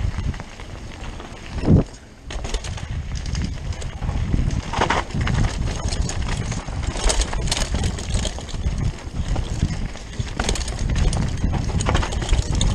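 Rockrider 540s ST mountain bike riding fast down a dirt forest trail: a steady rumble of tyres and wind on the camera, with the bike rattling and clattering over bumps. There is one heavy thump about two seconds in.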